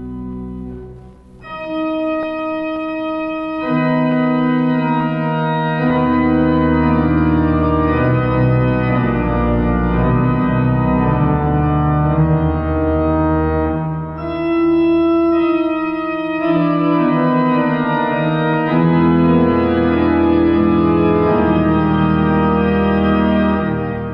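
Riga Cathedral pipe organ playing a slow, hymn-like piece in sustained chords that change every second or two. Deep pedal notes come in about six seconds in.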